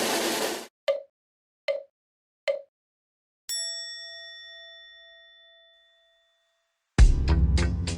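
An added sound effect: three short knocks a little under a second apart, then a single bell-like ding that rings out and fades over about two and a half seconds. Drum-heavy music cuts off at the start and music comes back in near the end.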